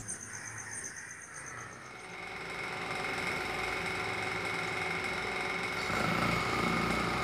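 Electric fan running with a steady mechanical hum, fading in after about two seconds.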